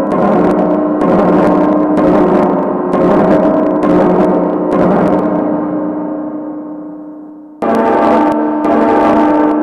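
Horror sound effect of resonant, gong-like metallic ringing, struck again and again so the sustained tones keep sounding. The ringing dies away over a couple of seconds, then cuts back in suddenly and loudly about three-quarters of the way in.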